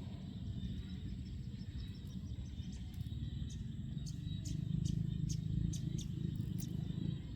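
Outdoor field ambience: a steady low rumble of wind on the microphone, swelling for a couple of seconds past the middle, with a quick run of fine ticks and then a series of short high chirps from small creatures.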